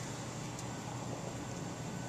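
Goodman gas package heating unit running with its cover on: a steady low hum with an even rushing of air from its fans and burner.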